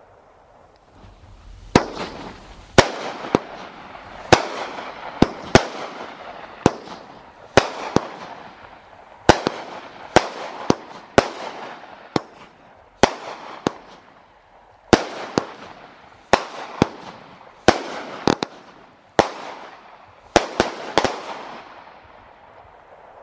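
A 200-gram consumer repeater cake of aerial fireworks ('Sexy Girl') firing shot after shot. About two dozen sharp bangs come at uneven intervals, half a second to a second and a half apart, each trailing off over about a second. They start a little under two seconds in and stop shortly before the end.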